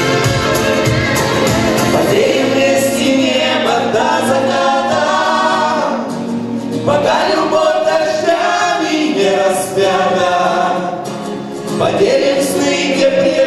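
A man and a woman singing a duet with musical accompaniment.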